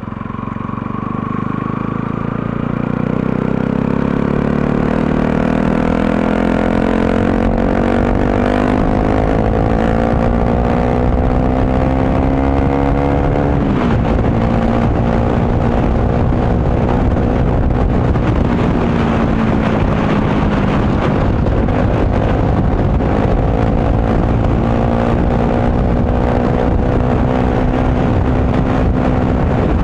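Motorcycle engine under way, its pitch climbing steadily as it accelerates, then dropping sharply about halfway through as it shifts up a gear, and running at a fairly steady cruise after that. A steady rushing noise runs underneath.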